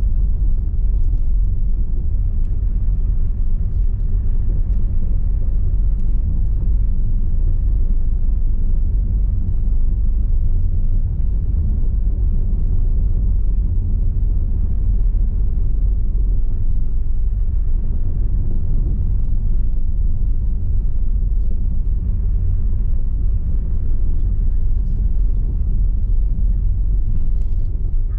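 A car driving slowly over cobblestone streets: a steady low rumble of tyres and engine.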